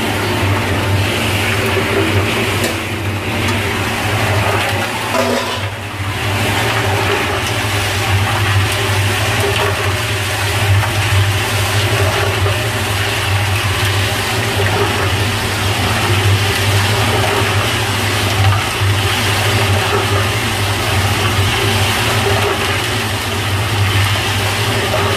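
Drum concrete mixer running with a steady low hum while a wet mix of sand, aggregate and cement sloshes and churns inside the turning drum.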